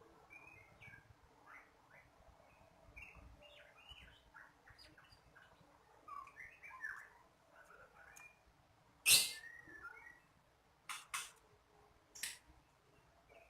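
Bar-winged prinia (ciblek kristal) giving scattered short, high chirps. A loud sharp click about two-thirds of the way through, and three shorter clicks near the end.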